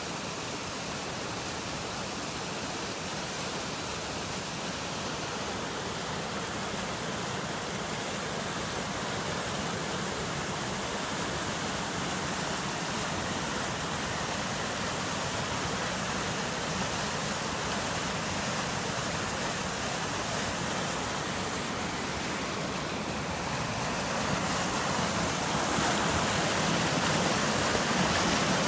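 Steady rush of a creek in full flood, muddy floodwater churning fast; the rush grows louder near the end.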